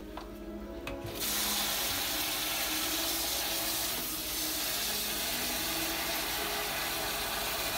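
Pull-out kitchen sink sprayer spraying water onto uncooked short-grain sticky rice in a plastic bowl: a steady hiss that starts suddenly about a second in, as the rice is rinsed.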